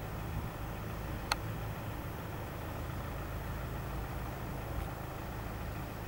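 Steady low hum of a road vehicle's engine idling, with one sharp click a little over a second in.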